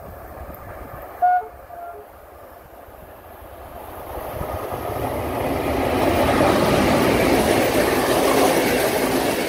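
Passenger train hauled by a Romanian 060-EA class electric locomotive approaching and passing close by. A short horn blast sounds about a second in. From about four seconds in comes a swelling rush of wheels on rail as the coaches go by.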